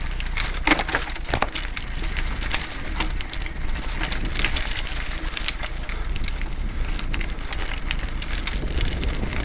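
Mountain bike riding down a rough dirt trail: a steady low rumble with frequent clicks and rattles as the bike jolts over stones and roots.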